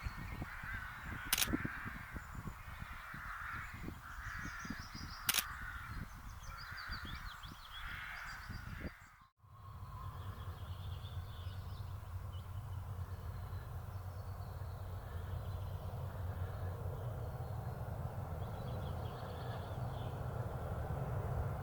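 A bird calling over and over in short notes, about one a second, with two sharp clicks among them. About nine seconds in the sound cuts to a low steady rumble with faint high bird calls over it.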